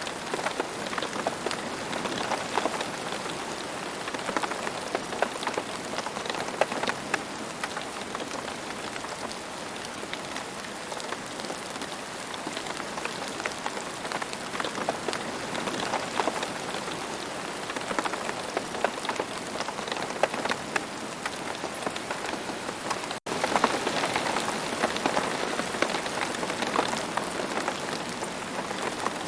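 Steady rain falling, a dense even hiss with many individual drops ticking through it. It breaks off for an instant about 23 seconds in, then carries on slightly louder.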